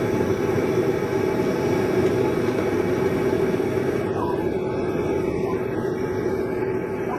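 Forge running steadily, a constant rushing noise with a low hum, as a hammer head is slowly brought up toward hardening temperature. The higher hiss thins a little about four seconds in.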